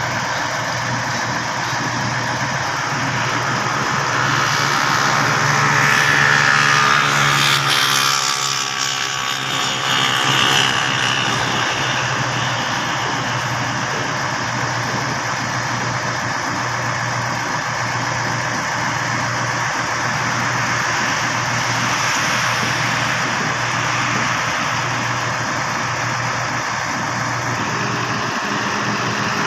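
Engine of a truck-mounted Schwing 42 m concrete boom pump running steadily with a constant low hum. It swells louder about five to nine seconds in, then settles back.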